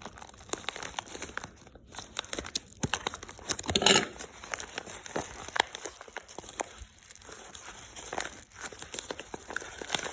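Packaging crinkling and crackling as it is handled and pulled at to get it open, with one louder rustle about four seconds in.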